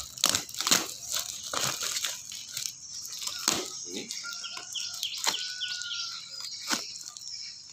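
Paper cement-sack wrapping and packing tape being torn and crinkled as a parcel is ripped open, a rapid series of sharp rips and crackles.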